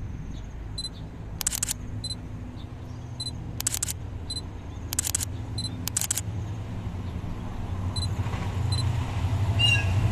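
Hitachi HID diesel-electric locomotive approaching at the head of a passenger train, its engine rumble growing steadily louder toward the end. Several short clattering bursts like a camera shutter firing in bursts, about a second or two apart, stand out over it.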